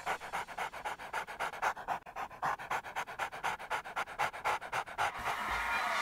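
Dog panting in quick, even breaths, stopping about five seconds in.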